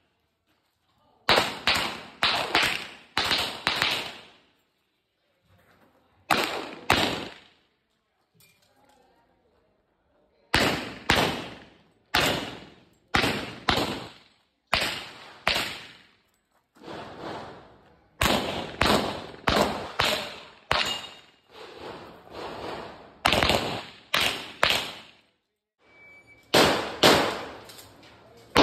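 Handgun shots fired in quick strings of two to five, with pauses of a few seconds between strings as the shooter moves between shooting positions on a practical pistol stage.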